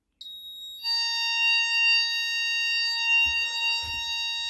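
An Advanced Go fire alarm panel's built-in sounder going off in one continuous steady tone as a smoke detector puts the panel into fire. The output delay is running, so only the panel sounder is heard, not the shed and garage sounders. A brief higher tone comes just before the steady tone settles about a second in, and a couple of dull knocks come near the end.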